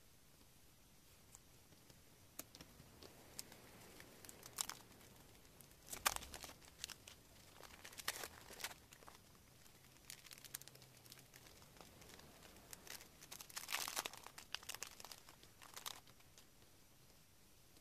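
Paper being folded and handled, then a plastic sticker packet crinkling as flake stickers are taken out of it: intermittent rustles and crinkles in short bursts.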